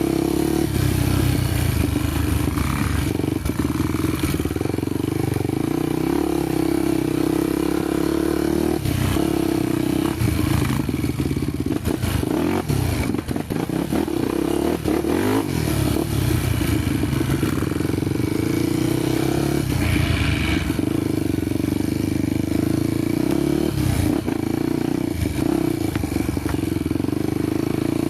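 Honda motorcycle engine running continuously on a dirt trail ride, its pitch dipping and rising now and then with the throttle, with scattered knocks and rattles throughout.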